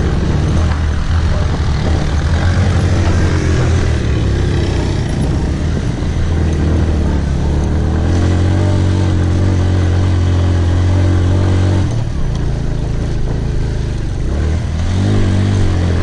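Motorcycle engine running under way on a dirt track, heard from on board; it holds steady revs, drops off sharply about twelve seconds in, and picks up again near the end.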